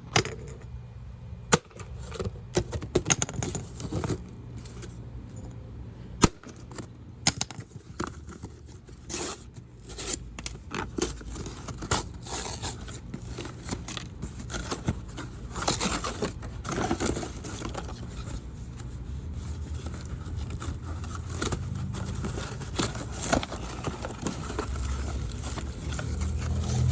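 Scraping and rustling handling noises with scattered sharp clicks, the two loudest about a second and a half in and about six seconds in. A low hum comes up and grows louder over the last several seconds.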